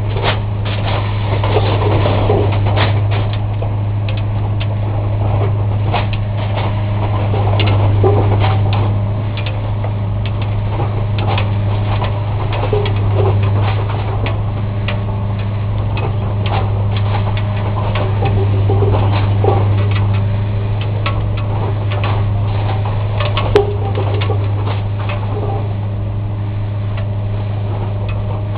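Track-renewal machine running with a steady low engine drone, under irregular metallic clanks and clicks from the work of replacing rail and laying concrete sleepers. One sharper knock comes about three quarters of the way through.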